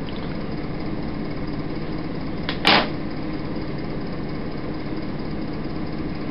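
Steady hum and hiss of an old videotape's sound track, with one short, loud burst of noise about two and a half seconds in.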